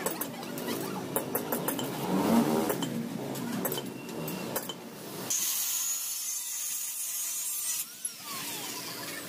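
Angle grinder grinding and cutting steel square tube, its pitch shifting with the load, then a harsh high hiss. Near the end it is switched off and winds down with a falling whine.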